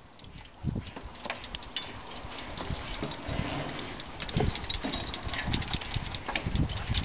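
Irregular clicks, clanks and dull thuds of people climbing a metal ladder up through a hatch, with boots and hands knocking on the rungs and the aluminium frame.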